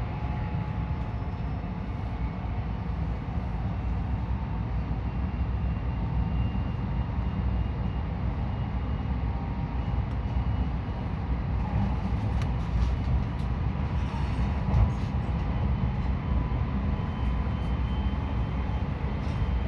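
Inside a JR West 223 series 2000 electric train in motion: a steady low rumble of wheels on rail, with faint thin steady tones above it and a few light knocks about two-thirds of the way through.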